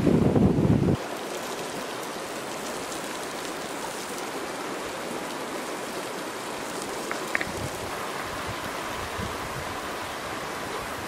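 A river rushing over rocks, a steady hiss of flowing water. For the first second, wind buffets the microphone with loud low rumbles, and two brief high squeaks sound about seven seconds in.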